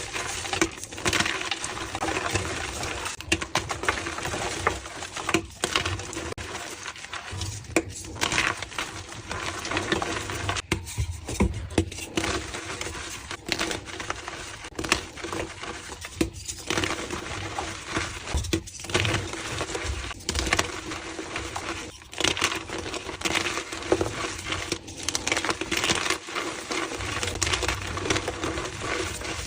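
Reformed blocks of gym chalk being crushed and crumbled: continuous dry crunching and crackling with many small snaps.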